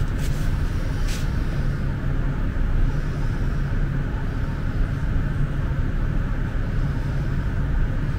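A steady low mechanical hum or drone, with one short click about a second in.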